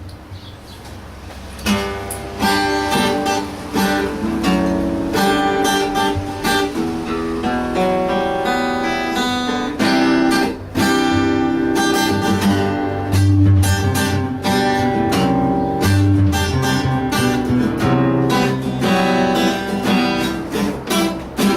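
Two guitars playing the instrumental intro of a song with strummed chords. It starts softly, and the full strumming comes in about two seconds in.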